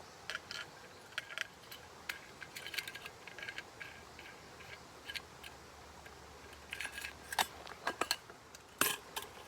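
Scattered light clicks and clinks, irregular, with a few louder ones in the last couple of seconds.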